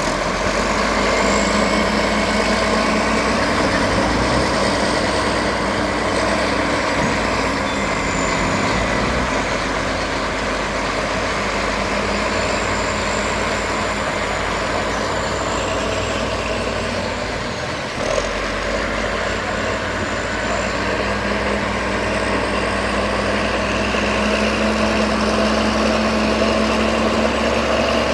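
Heavy earthmoving machinery's engine running steadily at work, with a thin high squeal drifting in and out above it. A single short knock comes about 18 seconds in, and the engine grows a little louder near the end.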